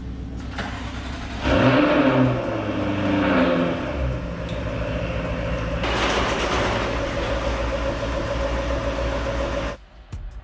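Car engine running, revved up and down a few times from about a second and a half in, then running steadily. The sound cuts off abruptly near the end.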